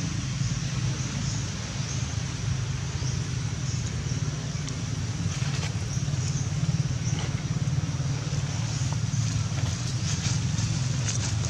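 Steady low rumble of an engine running, with a few faint clicks about halfway through and near the end.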